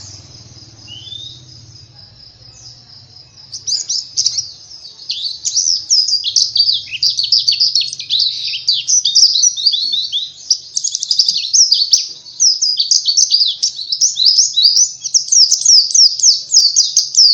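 Pleci (Zosterops white-eye) singing a fast, high twittering song of rapid chirps. It starts a few seconds in, then runs on densely with a brief dip about halfway.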